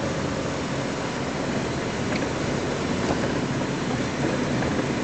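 Vehicle driving along a wet, slushy road: a steady low engine hum under continuous tyre and road noise.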